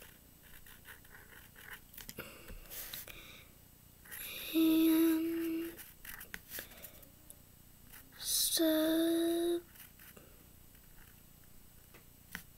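A girl humming two held notes, each about a second long: one a few seconds in and one past the middle. Between the notes there is faint scratching of a marker tip on paper.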